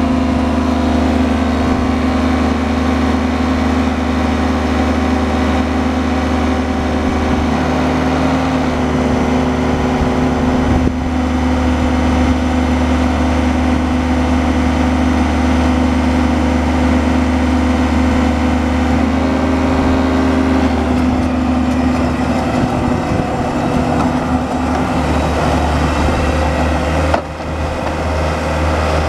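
Bomag 815-2 asphalt paver's diesel engine running steadily, with a strong low hum. A rougher, noisier layer comes in over the second half, and the sound dips briefly near the end.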